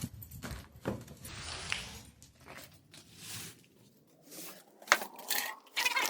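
Broom sweeping debris off a patio: a series of brushing, scraping strokes with short pauses between them and a few sharp knocks.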